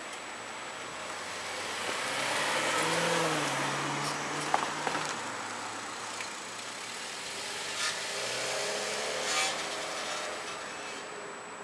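Road traffic: a car passes on the street, its engine and tyre noise rising to a peak about three seconds in and fading, then another vehicle passes about nine seconds in. A few sharp clicks come between the two passes.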